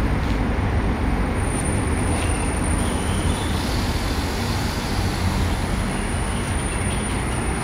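Steady rumble of road traffic, with a faint steady high-pitched whine above it.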